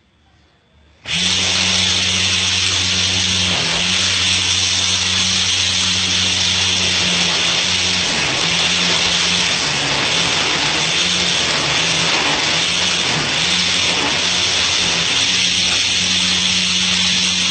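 Old blender's electric motor, rigged as a grass trimmer with plastic cable ties for cutting line, switched on about a second in and running at full speed, its hum dipping and wavering now and then as it takes load.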